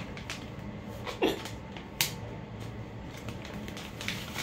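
Pack of makeup wipes being handled and opened: a few light clicks and rustles, with one sharp click about two seconds in.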